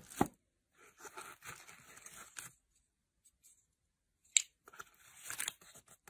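Doorbell packaging handled by hand: rustling and crinkling of the box and its contents in two stretches, with a sharp tap right at the start and another a little past four seconds in.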